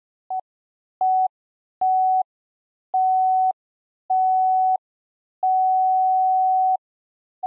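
Electronic beeps at one steady mid pitch, seven in a row, mostly held longer each time, from a short blip to over a second. This is a sound effect for an on-screen loading counter climbing toward 100%.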